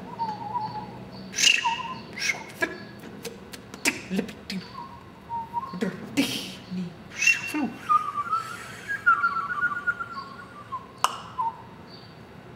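Extended vocal technique by a male performer: short, high, thin whistle-like tones (ubersetto) that waver and glide, broken up by sharp mouth clicks and breathy hisses.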